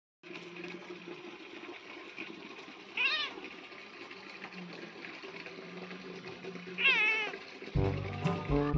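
A domestic cat meows twice, short calls about three and seven seconds in, over a faint steady background. Brass music comes in near the end.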